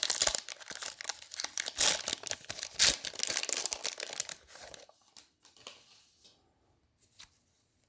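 A trading card wax pack wrapper being torn open and crinkled, dense crackling for about five seconds. Then a few faint ticks as the cards are handled.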